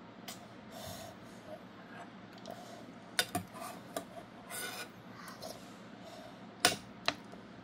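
Metal spoon scraping and clinking against the inside of a stainless-steel bowl while scooping up soup, with a few sharp clinks about three to four seconds in and again near the end.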